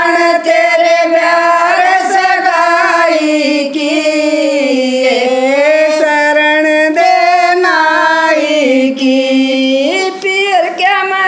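Women singing a Haryanvi folk song (jakdi) without instruments, in long held notes that slide and waver in pitch.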